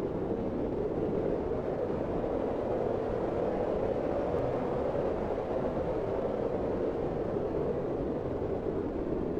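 Blizzard wind blowing in a steady, low-pitched rush, with no gusts or breaks.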